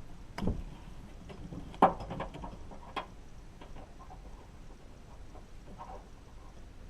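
Clicks and knocks of hard parts and tools being handled while a car door lock actuator is taken apart. There are a few sharp clicks in the first three seconds, the loudest just before two seconds in, then only faint ticks.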